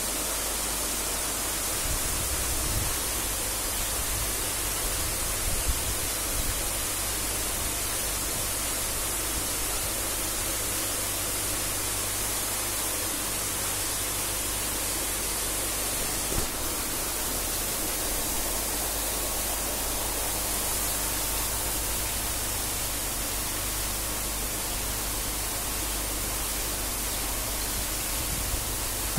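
Steady rushing and bubbling water in an aerated biofloc shrimp tank: many aeration points churning the water into foam while fresh water pours in from a pipe. A faint low hum runs underneath.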